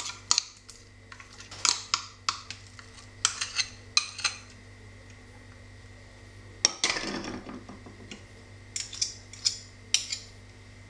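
A metal spoon and fork clink and scrape against glass mixing bowls while yogurt is scraped into beaten eggs: a series of short, sharp clinks, with a louder clatter about seven seconds in.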